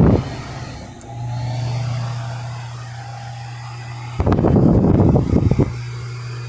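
Mondial Super Power 40 electric fan running with a steady motor hum. For about a second and a half in the second half, a loud rough rush of noise covers it, like the fan's airflow buffeting the microphone.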